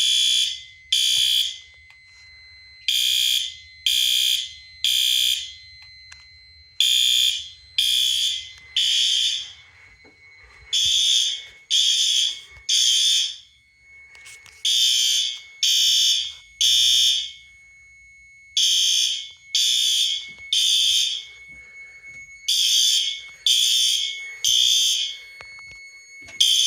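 Fire alarm horns sounding the temporal-3 evacuation pattern: three loud beeps about a second apart, then a pause, the group repeating every four seconds. A faint steady high whine runs underneath. The alarm was set off by a 5451 heat detector going into alarm.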